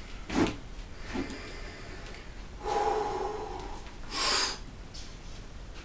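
A man's forced breathing and straining while bending a steel adjustable wrench by hand. There is a sharp breath near the start, then a strained, pitched grunt held for about a second from about two and a half seconds in. A hard hissing breath follows about four seconds in.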